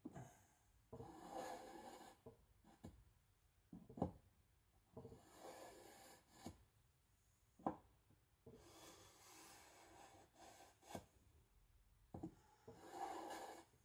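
Knife edge being drawn into a cutting board to remove the burr after sharpening: several faint scraping strokes a second or two long, with a few sharp knocks in between.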